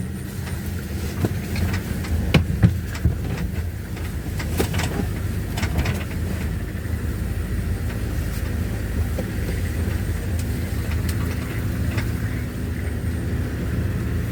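Vehicle driving slowly: a steady low engine and road rumble, with a few sharp knocks and rattles in the first half.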